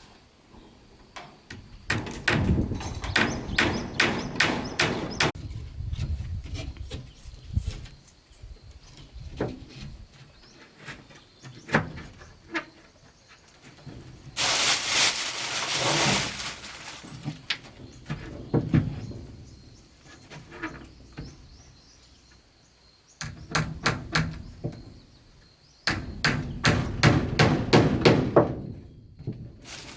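Runs of quick, repeated knocks of wood being struck during building work, a few blows a second, with single knocks between. About halfway through comes a short rushing noise lasting a second or two.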